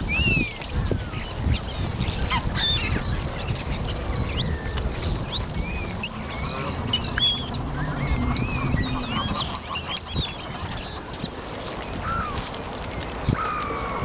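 A mixed flock of park birds calling: many short chirps and squawks overlapping throughout, over a steady low rumble.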